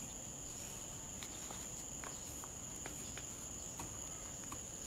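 Steady high-pitched insect trill, like crickets, with scattered faint ticks.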